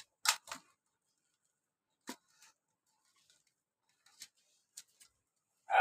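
A few brief, scattered rustles and clicks from a hand squeezing and mixing sliced onions with flour in a glass bowl, with near silence between them.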